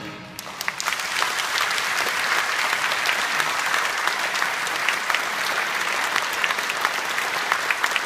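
Audience applauding steadily in a concert hall, starting about half a second in, just after a school wind band ends its piece.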